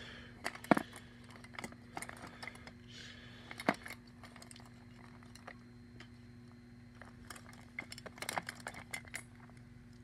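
Disposable lighters clicking and clinking against each other as a hand shuffles through a tub packed full of them: scattered sharp knocks, louder near the start and again near the end, with a quieter stretch in the middle.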